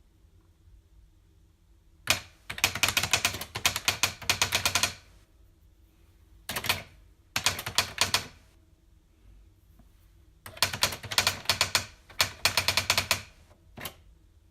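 Typewriter being typed on: runs of rapid key strikes lasting one to three seconds, separated by short pauses, with a single strike near the end.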